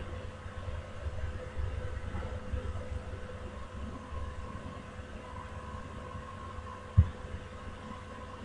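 Steady background hum with a fluctuating low rumble, as of a running computer fan or room noise picked up by the microphone, and one short thump about seven seconds in.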